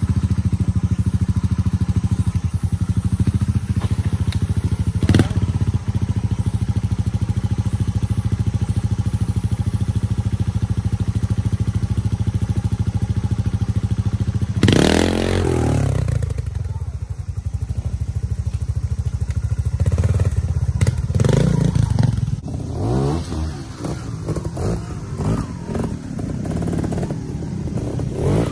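Trials motorcycle engine running steadily at low revs for about fifteen seconds, then revved sharply up and back down. It is followed by a series of short, uneven throttle blips.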